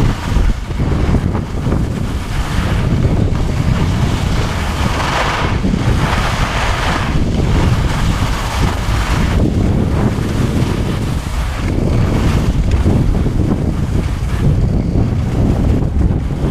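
Wind buffeting a camera's microphone as a skier goes downhill at speed, a loud steady rumble. Over it, skis hiss and scrape across packed snow in swells every few seconds as the skier turns.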